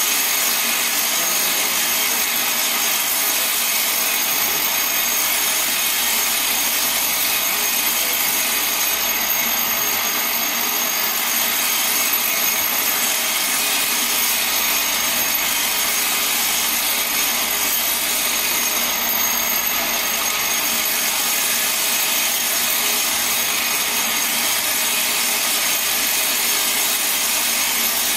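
Vibratory bowl feeder running, a load of small metal compressor feet chattering continuously as they vibrate around the bowl and along its track: a steady, even metallic rattle.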